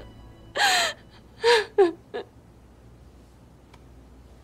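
A person crying: four short gasping sobs with falling pitch in the first two seconds or so.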